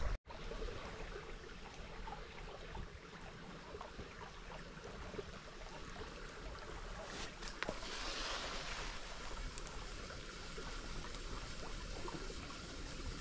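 Shallow forest stream flowing steadily, an even wash of running water, with a few faint clicks and a brief swell of hiss about eight seconds in.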